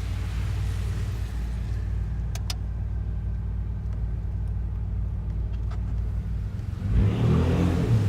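Ford F-150's 3.5L EcoBoost twin-turbo V6, with muffler and resonator deleted, idling with a steady low exhaust rumble. About a second before the end it is given a throttle kick and revs up louder.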